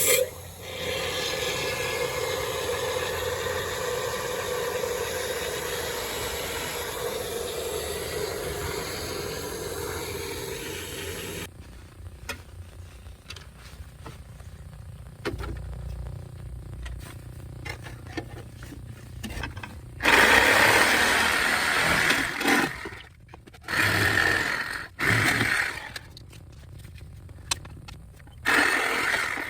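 Can of expanding spray foam hissing as foam is injected into a rocker-panel cavity: a steady spray for about eleven seconds, then several shorter noisy bursts in the second half.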